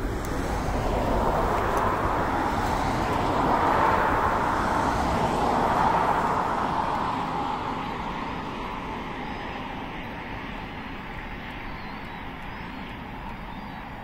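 A road vehicle passing by: a rushing noise that swells over the first couple of seconds, peaks a few seconds in, then slowly fades away.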